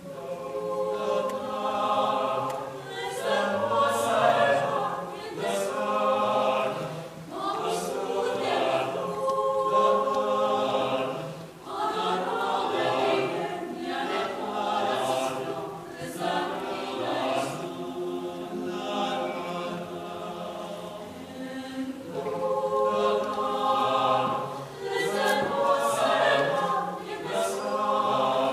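Mixed choir singing a Cuban habanera a cappella, phrases swelling and easing off with short breaks between them.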